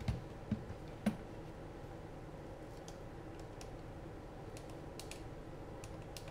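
Buttons on a FrSky Taranis X9D Plus radio transmitter clicking as the menu is stepped through: three soft knocks of the radio being handled in the first second or so, then a scattered run of light clicks.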